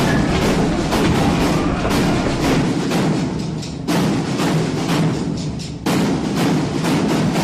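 Music with a fast, steady percussive beat, which breaks off abruptly twice and starts again.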